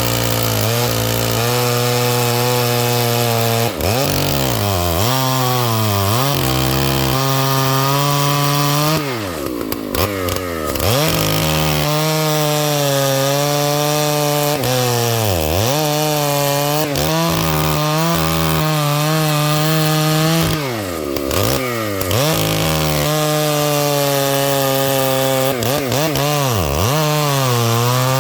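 Husqvarna 298XP two-stroke chainsaw cutting through wood under heavy load. The engine holds a steady pitch through the cut, and several times its pitch drops sharply and climbs back as the throttle is eased and reopened.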